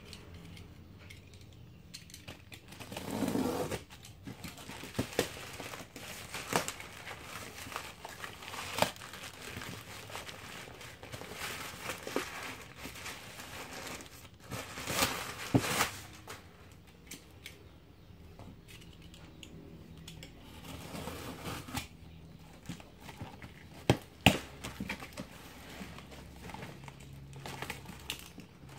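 Plastic parcel wrap crinkling and tearing as it is cut with a box cutter and pulled off a cardboard box, with scattered sharp snaps and clicks; near the end, the box's cardboard flaps being pulled open.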